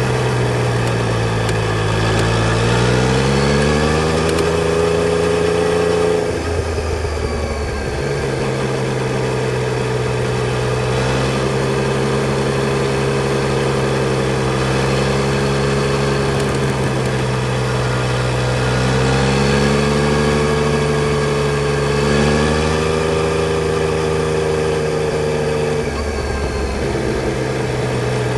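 Yamaha Tracer 900 GT's three-cylinder engine pulling under throttle: its note rises steadily for several seconds, drops suddenly, holds fairly steady for a long stretch, then rises and drops again near the end.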